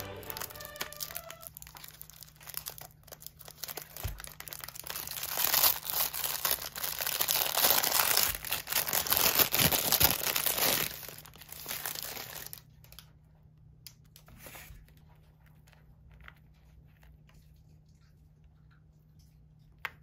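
A clear plastic bakery sleeve crinkling and rustling as it is handled and pulled off a pastry in a paper tray, loudest in the middle. After about twelve seconds it stops, leaving only a few faint clicks.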